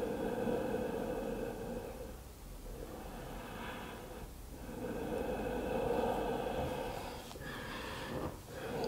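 A person breathing slowly and audibly while holding a seated forward fold in yoga: a few long, drawn breaths of two to three seconds each, with short pauses between them.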